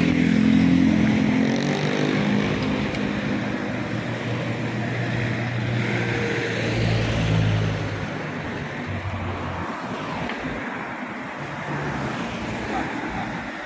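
Road traffic passing on a highway: the hum of vehicle engines swells and fades, loudest right at the start, with a second swell about seven seconds in and a fade toward the end.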